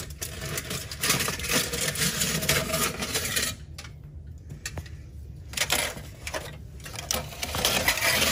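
Aluminum foil crinkling and rustling as it is pulled out and crumpled, in irregular spells with pauses between them.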